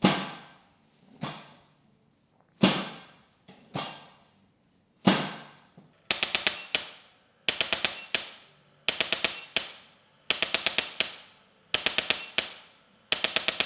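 Sharp, ringing percussive strikes: single hits about a second and a half apart, then from about six seconds in, quick bursts of five or six rapid strikes repeating at an even pace.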